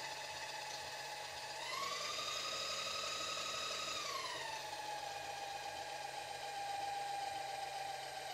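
AL310 mill table power feed running, its motor and gearbox giving a steady whine as it drives the table. The pitch rises about one and a half seconds in, holds, then falls back a few seconds later. It cuts off abruptly at the end as the newly fitted limit switch is tested.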